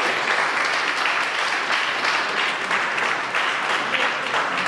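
Audience applauding: many hands clapping together in a steady, continuous round of applause.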